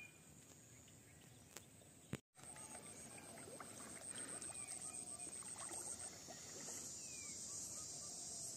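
Quiet lakeside ambience. After a brief dropout, a high, pulsing insect trill sets in and runs steadily, with a few faint bird chirps and soft water swishing around a man wading beside an inflatable boat.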